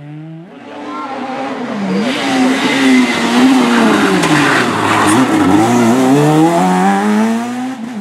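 Fiat Grande Punto Abarth rally car coming through a hairpin close by at full race pace: its engine revs high, the note drops through the corner, then climbs again as it accelerates out and fades away near the end.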